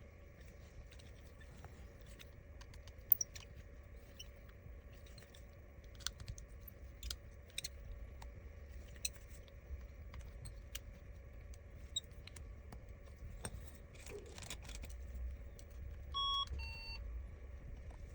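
Scattered small clicks and taps of repair tools working on the phone's tiny screws and metal shield, over a faint steady hum. Near the end a short electronic beep of two notes, the second lower.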